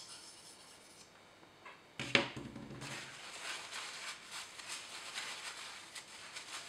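Faint strokes of a knife blade on a water whetstone. About two seconds in there is a sharp knock, then paper towel rustles and rubs along the blade as it is wiped dry.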